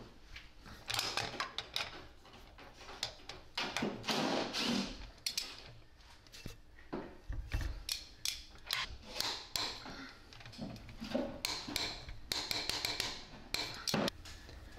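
A ratchet wrench clicking and metal tools clinking on the connecting-rod cap bolts of a John Deere B two-cylinder engine, in irregular sharp clicks and short scraping bursts.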